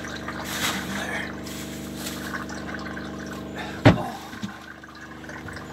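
Water trickling over a steady humming motor, with one sharp knock a little before four seconds in.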